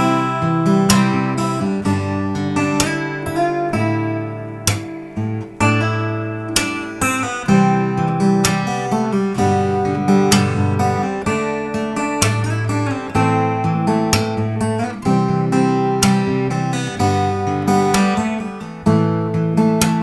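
Background music: strummed and plucked acoustic guitar.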